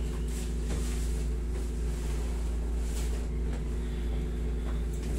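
Steady low hum of a window-type air conditioner, with a few faint brief rustles of hands working over clothing.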